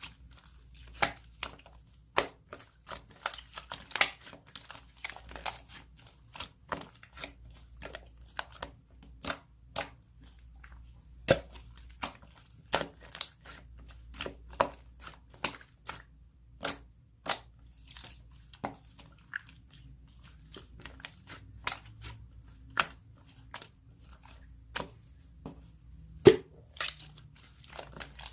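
Slime being squeezed and poked by hand, giving an irregular string of sharp clicks and pops, about one or two a second.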